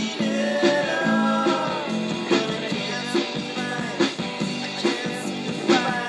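Rock song with guitar, a steady drum beat and a sung line early on, played through a Sony CFD-440 CD/cassette boombox.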